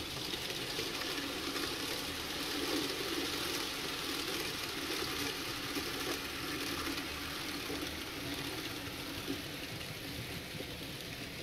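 N-scale model freight train rolling along the track: a steady whirring rumble of the small locomotive motor and the wheels on the rails, easing off slightly toward the end.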